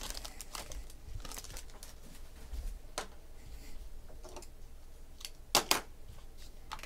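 Foil wrapper of a Topps Finest football card pack crinkling as it is opened, then trading cards rustling as they are handled and sorted, with a few sharp clicks of card on card.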